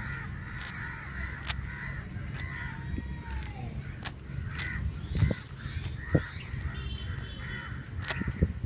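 Crows cawing repeatedly, with short sharp clicks and rustling as feathers are pulled from a dead dove. There are a couple of louder thumps a little past the middle.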